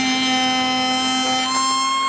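Table-mounted spindle cutter on a woodworking machine running with a steady whine of several held tones as a board is fed past it to cut a grooved profile. The whine shifts about one and a half seconds in.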